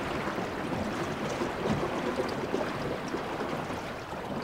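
Steady rush and splash of water along the hull of a 1960 O'Day Osprey sailing dinghy running downwind, with wind, no single event standing out.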